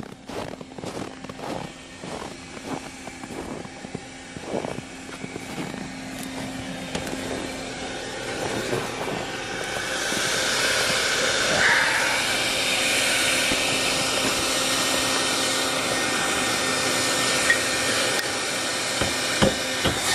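Footsteps at a walking pace for the first several seconds, then a hair dryer blowing steadily, growing louder from about halfway through. The dryer is running in a travel trailer's underbelly to thaw frozen plumbing.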